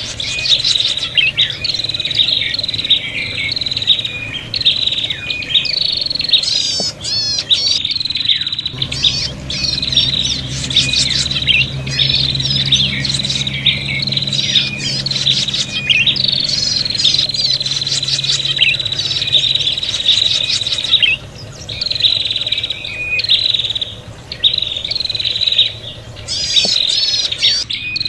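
Prinias (prenjak) giving fast, high-pitched chattering calls over and over with hardly a pause, with a couple of brief gaps late on. These are the noisy, agitated 'fighting' calls (ribut tarung) used to lure wild prinias.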